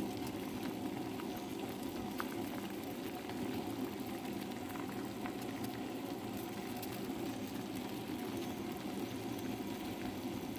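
Luffa and clam soup at a rolling boil in a steel pot: steady bubbling.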